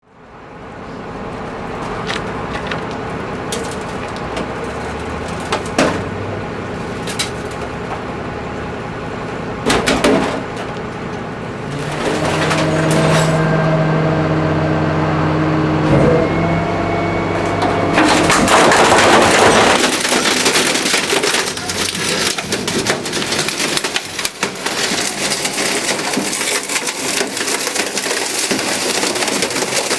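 Refuse truck's hydraulic compactor crushing an automatic washing machine: the truck's engine and hydraulics hum and whine with occasional sharp cracks, then from about 18 seconds in there is a dense run of crunching, cracking and splintering as the machine's casing gives way.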